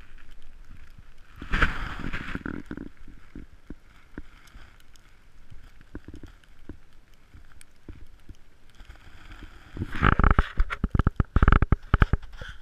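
Muffled rumbling and knocking on a GoPro's microphone as the camera is handled and moved. It surges briefly about two seconds in, then turns into a dense run of knocks and rumble near the end.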